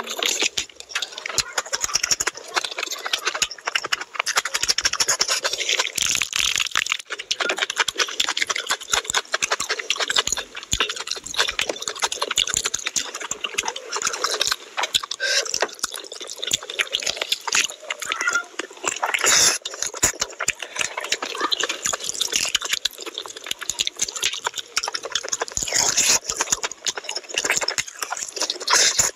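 Wet chewing and lip-smacking of someone eating chicken curry with the hands, a dense run of sticky clicks and squelches.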